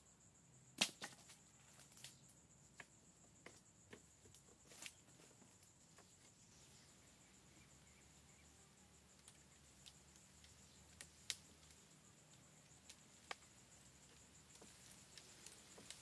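Sparse sharp knocks and snaps of wood, the loudest about a second in and a few more scattered after, over a faint steady high-pitched insect drone.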